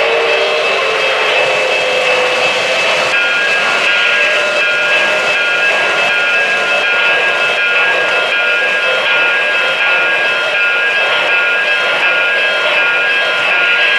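O-gauge model trains running on three-rail track: a steady whirring, rushing noise with a few thin, steady high tones, two more of which come in about three seconds in.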